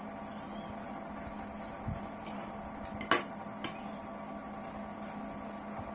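A few short clinks of a metal spoon against a glass serving bowl, the loudest about three seconds in, over a steady electrical hum.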